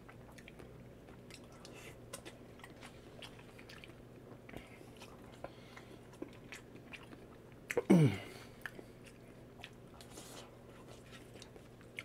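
Faint close-up chewing and wet mouth clicks of a man eating fried rice and seafood. About eight seconds in comes one short, loud vocal sound that falls steeply in pitch.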